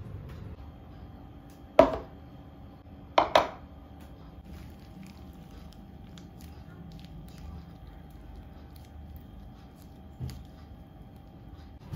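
Sharp knocks of hard objects set down or bumped during tidying: one at about two seconds and a quick pair a second and a half later, each with a short ring, then a softer thud near the end, over a faint steady hum.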